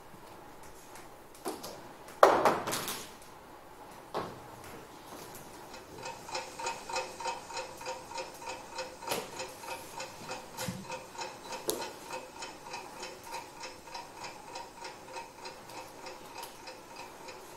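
A ticking-clock sound effect starts about six seconds in and keeps up a quick, even tick-tock. Before it, about two seconds in, there is a loud, brief rustle.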